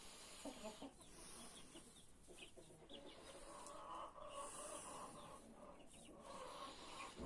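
Dominant-breed chickens clucking faintly, with short calls scattered throughout and a few longer calls in the second half. The birds are from a flock infected with a respiratory illness.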